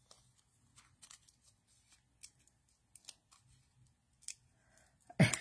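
Faint, scattered clicks and rustles of a paper strip of adhesive foam dimensionals being handled and peeled from its backing.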